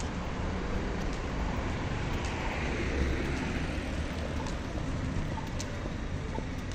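Steady street traffic noise: a low rumble of cars and tyres, swelling as a vehicle passes about three seconds in, with a few faint ticks.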